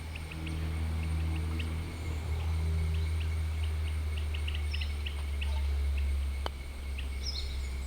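Rainforest insects and birds chirping over a steady low hum. A single sharp click about six and a half seconds in is the club striking the ball on a chip-and-run.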